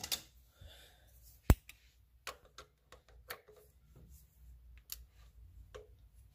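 A few scattered sharp clicks and light taps of hand tools at the crankshaft pulley bolt. The loudest is a single click about one and a half seconds in.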